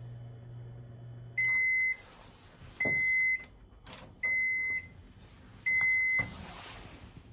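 Microwave oven's running hum cuts off about a second and a half in, then four evenly spaced beeps sound to signal that the heating cycle has finished. The door is pulled open with a click between the beeps.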